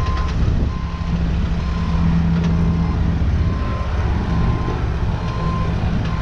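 Bobcat mini excavator tracking under power: its diesel engine runs with a steady low drone while its travel alarm beeps about once a second.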